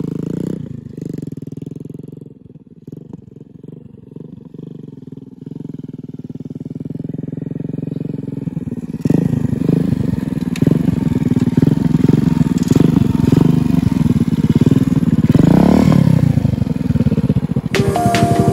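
Modified Hero Honda Splendor+ motorcycle's single-cylinder four-stroke engine running through an aftermarket exhaust. It is quieter at first, gets louder about halfway through as the bike is ridden, and revs up and back down near the end. Music comes in just before the end.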